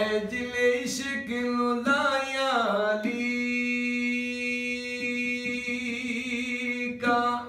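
A man singing unaccompanied by any melody instrument, holding one long note for about four seconds in the middle, with a few light hand taps on an upturned aluminium cooking pot played as a drum.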